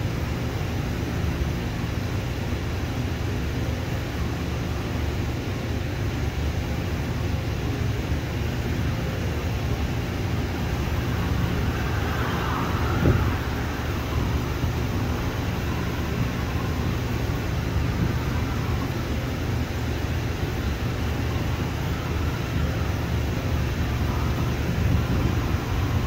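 Steady low rumble of airport background noise, with a distant airliner taxiing on the runway. About thirteen seconds in there is a single short knock.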